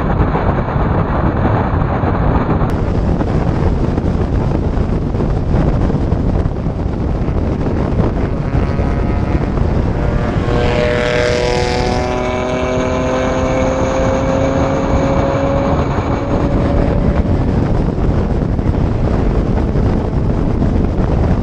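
Turbocharged 1.8-litre four-cylinder of a VW Jetta Mk4 running hard under heavy wind noise. Its engine note sweeps past about halfway through and then climbs slowly as the car pulls away.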